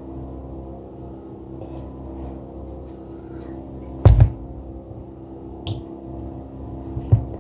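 Sharp knocks of a plastic syrup squeeze bottle against the mixing bowl and kitchen counter, a loud one about four seconds in and another near the end, over a steady low hum.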